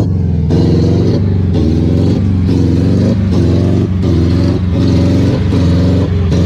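Car engine revving in repeated surges, about one a second, as a car stuck in mud tries to drive out while being pushed.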